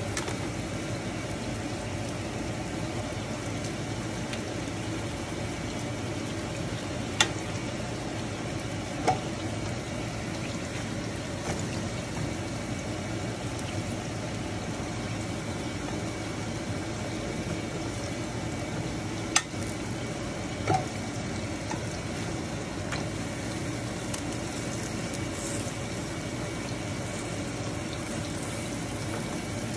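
Steady hiss of a paratha cooking on a flat pan over a gas stove, broken by four sharp clicks of a metal spatula knocking against the pan.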